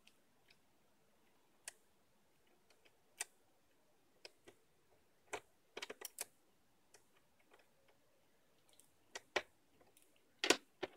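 Plastic screen bezel of an HP Pavilion dv6 laptop being pried off by hand: irregular sharp clicks and snaps as its clips pop free, with a quick cluster around the middle and the loudest pair near the end.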